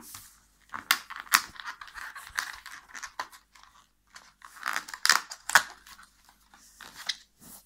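Cardboard and thin clear plastic tray of a chocolate advent calendar crackling and tearing in irregular bursts as a chocolate is pushed out of its cell.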